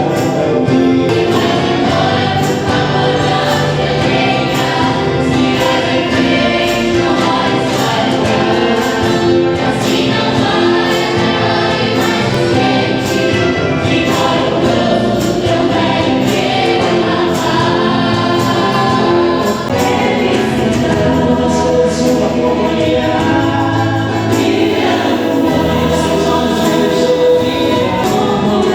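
A choir singing with instrumental accompaniment and a steady beat.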